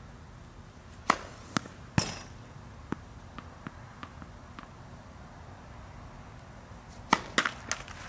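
Tennis serves: a racket strikes the ball with a sharp pop about a second in, followed within a second by two more sharp ball impacts and then a few faint ticks. Near the end comes a quick cluster of four sharp hits.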